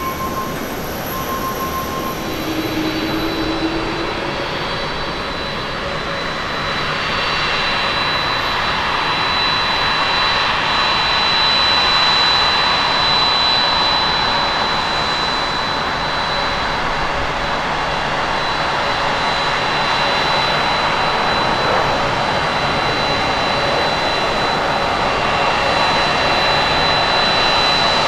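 A Boeing 737-800 jet landing and rolling down the runway, its CFM56 engines giving a broad roar with a steady high whine over it. The sound builds about six seconds in and stays loud; it follows a quieter jet roar at the start from an Airbus A330 climbing away.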